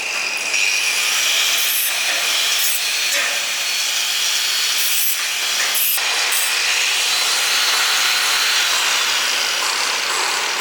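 Power tool grinding stainless steel, a steady abrasive rasp with a high motor whine running through it.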